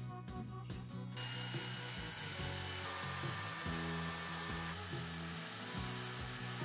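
A rotary tool spinning a wire brush against a rusty steel revolver hammer clamped in a vise, cleaning it. It gives a steady hiss that starts about a second in, over background music.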